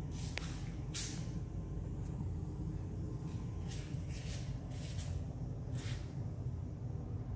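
A steady low mechanical hum, with several short bursts of hiss.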